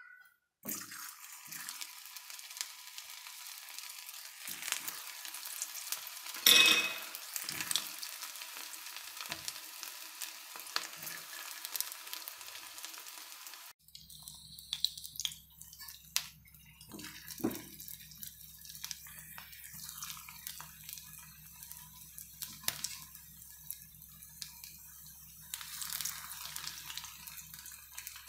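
Potato-and-rava fingers deep-frying in hot oil in a wok: a steady sizzling hiss with small crackles, and one loud clatter about six seconds in. About halfway through, the sound changes and a low steady hum runs under the bubbling.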